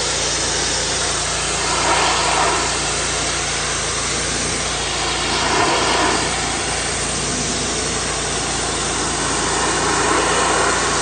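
Black Max pressure washer running steadily, its engine humming under the hiss of the water jet spraying on vinyl siding. The spray noise swells slightly a few times.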